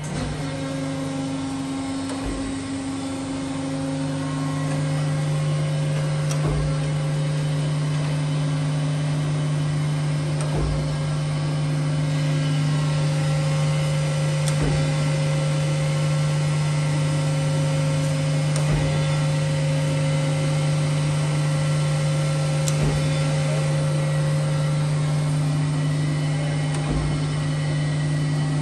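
Thompson surface grinder running: a steady hum from the wheel spindle motor and hydraulic pump, while the hydraulic table traverses back and forth with a short knock at each reversal, about every four seconds.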